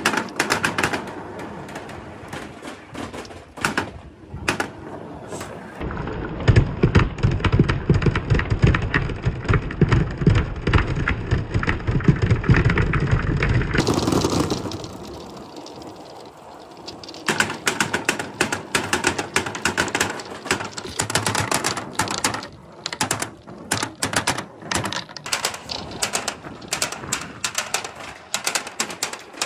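Many small billiard balls rolling and clacking against one another and a plastic tub, with a dense, deep rolling rumble through the middle. After that come rapid sharp clicks and knocks as balls roll down a perforated board slope between wooden rails.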